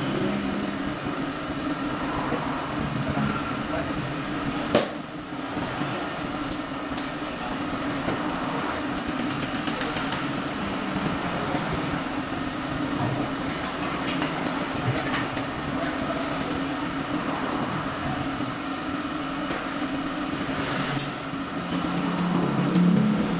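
Steady machine hum of tyre-shop equipment, with scattered knocks and clinks of wheels and tools being handled and one sharp knock about five seconds in.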